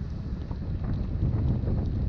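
Wind buffeting the microphone of a moving bicycle: a heavy, unsteady low rumble.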